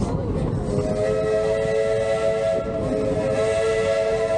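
Steam locomotive's chime whistle blowing one long, steady chord of several notes, starting about a second in, over the running noise of the moving train.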